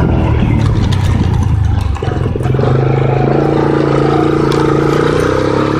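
Four-wheeler (ATV) engine running while riding. Its note dips briefly about two seconds in, then holds steady and rises slightly, with scattered clicks and rattles.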